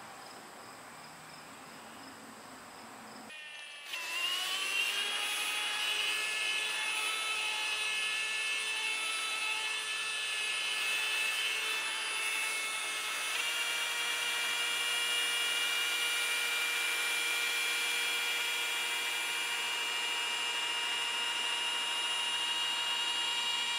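Rotary polisher with a coarse blue foam pad spinning up about four seconds in, then running with a steady high whine while cutting oxidation off the airplane's painted skin; its pitch shifts slightly about halfway through.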